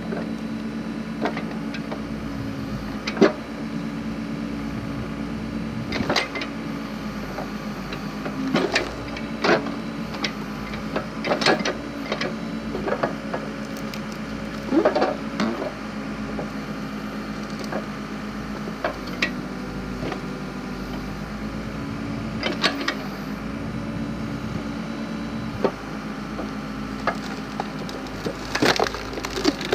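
Backhoe engine running steadily while a splitter attachment forces through firewood logs. Sharp cracks and snaps of splitting wood come repeatedly, with clusters near the middle and near the end.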